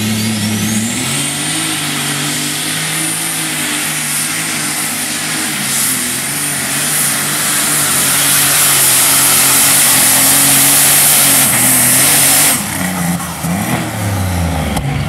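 John Deere pulling tractor's engine running wide open under load as it drags a weight-transfer sled, with a high whistle that rises in the first second and then holds. It grows louder through the middle of the pull, then drops back sharply about twelve and a half seconds in as the pull ends.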